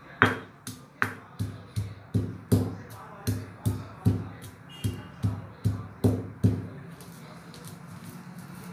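A stone pestle pounding roasted peanuts in a stone mortar (khalbatta), about two and a half to three dull knocks a second, coarsely crushing them. The pounding stops about six and a half seconds in, leaving a steady low hum.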